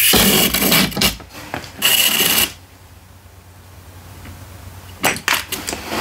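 Crinkling and rustling of a plastic grab-bag packet being handled and opened for about two and a half seconds, then a few light clicks of small plastic toys being handled near the end.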